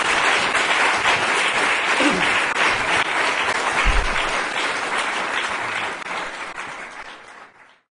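Audience applauding, a dense patter of many hands clapping that fades out over the last couple of seconds and then stops.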